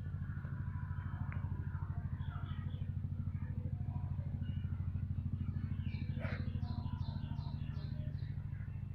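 An engine running steadily at idle with a fast, even pulse, with birds chirping faintly over it and a quick run of chirps near the end.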